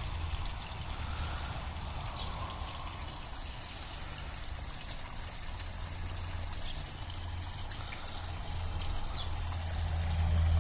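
Water splashing and trickling into a garden koi pond from its water-blade cascade, a steady noise that grows louder near the end, over a low rumble.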